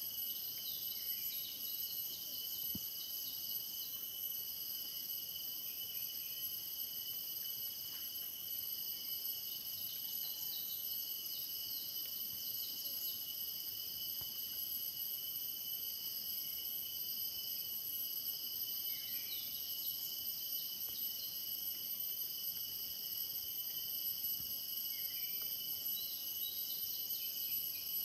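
A steady insect chorus: several continuous high-pitched buzzing tones layered at different pitches, with short faint chirps scattered over it.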